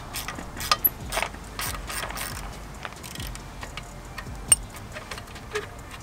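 Socket ratchet clicking in short, irregular runs as it backs out the 12 mm bolt under a motorcycle's stock exhaust. The clicks are thickest over the first couple of seconds, then come sparser, with one sharp click near the end.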